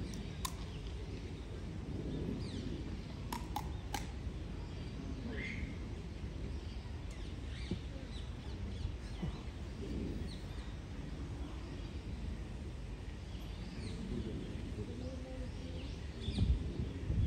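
Sparrows chirping faintly now and then over a steady low outdoor rumble, with a few sharp clicks about three to four seconds in and a louder low thud near the end.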